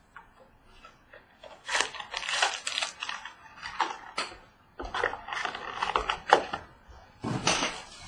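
A pack of baseball cards being opened and handled: irregular bursts of wrapper rustling and the clicks of cards being slid and shuffled.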